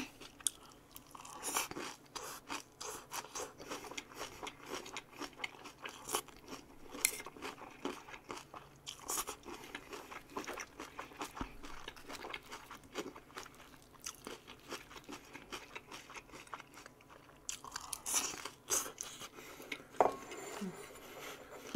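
A person chewing a mouthful of vegetables: a steady run of small, irregular crunching and mouth clicks.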